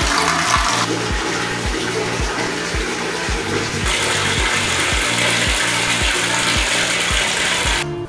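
A stream of water pouring into a metal bucket as it fills, with background music with a steady beat underneath. The pouring stops suddenly near the end.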